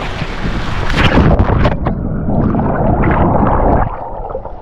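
A big splash about a second in as someone plunges into a swimming pool, followed by muffled churning and gurgling of the water around the microphone, which falls away shortly before the end.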